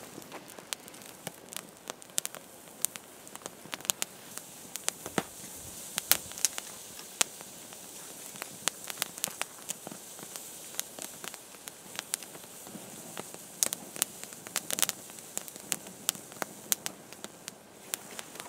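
Small stick fire in a wire pack-grill wood stove crackling, with frequent irregular sharp pops and snaps over a steady hiss.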